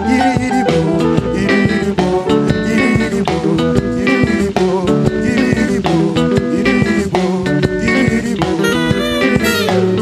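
A live band playing: electric guitar lines over a drum kit with a steady beat.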